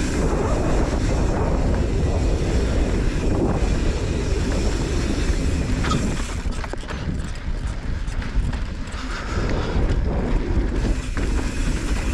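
Wind noise buffeting the microphone over the rumble of a YT Capra Core 4 mountain bike's tyres rolling fast down a rocky dirt trail, with a few sharp clicks and knocks from the bike.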